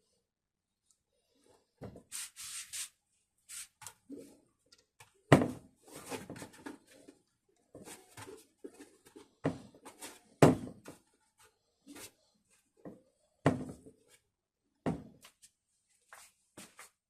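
Irregular knocks, clatter and rubbing of things being handled, with a short hiss of aerosol lubricant spray about two seconds in.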